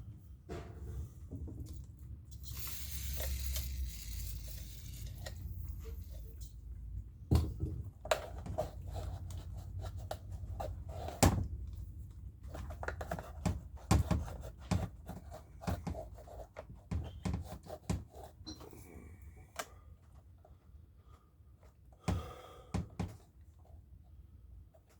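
Handling noises on a workbench: scattered knocks, thunks and clicks as parts and tools are picked up and set down, with a stretch of hiss about three seconds in.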